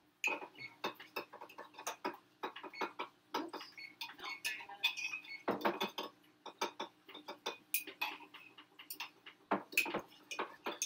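Kitchen utensils and cookware clinking and knocking in quick, irregular taps, some with a short metallic ring. A faint steady hum runs underneath.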